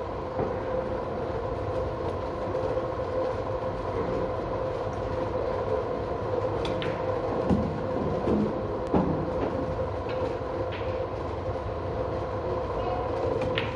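A steady mechanical hum with a droning tone fills the room throughout. A few faint clicks sound midway, and a sharper click near the end, where the cue strikes the cue ball.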